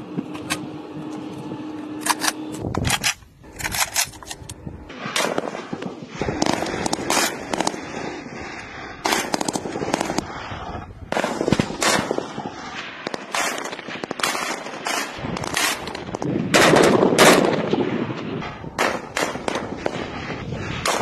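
Chinese QBZ-191 assault rifles firing 5.8 mm rounds: an irregular string of sharp shots, some single and some in quick runs, each ringing out briefly. The loudest run of shots comes about four-fifths of the way through.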